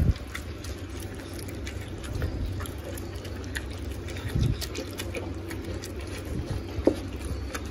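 Rottweiler puppy eating softened kibble and egg from a metal bowl: wet chewing and mouthing with many small scattered clicks and a slightly louder knock about four and a half seconds in.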